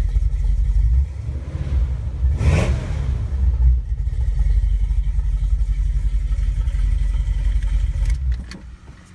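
Chevy 350 small-block V8 with a Summit cam, idling while still slightly cold, with a short burst of noise about two and a half seconds in. The engine cuts out near the end.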